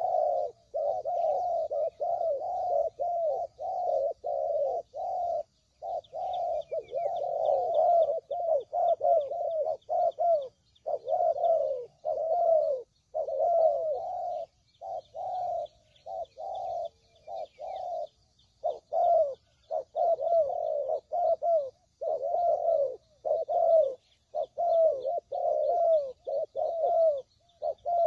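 Spotted doves (tekukur) cooing in a fast, continuous series of repeated coos with only brief gaps, some calls overlapping. Faint high chirps of small birds sound behind them.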